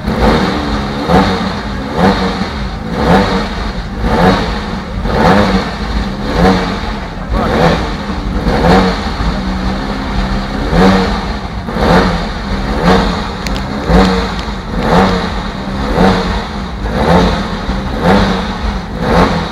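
Car engine revved over and over in a steady rhythm, rising and falling about once a second.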